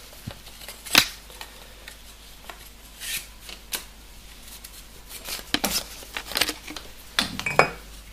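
Metal airgun parts (a pneumatic cylinder, metal tubes and a quick exhaust valve) being handled on a sheet-metal workbench: scattered clinks and knocks, the sharpest about a second in, with several more close together near the end.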